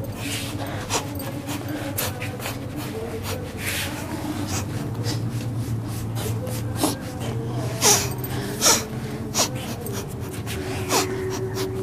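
A person coughing and gasping in repeated short, sharp bursts, the strongest about eight seconds in, over a steady low hum.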